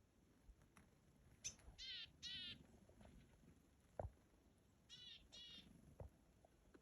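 A bird calling in two pairs of short, wavering, harsh calls, the second pair about three seconds after the first. A sharp knock sounds between the pairs and another soon after.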